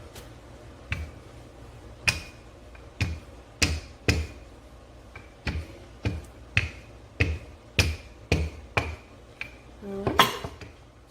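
Repeated sharp knocks of kitchen utensils, roughly two a second and somewhat uneven, some with a short ringing tone, and a louder clatter near the end.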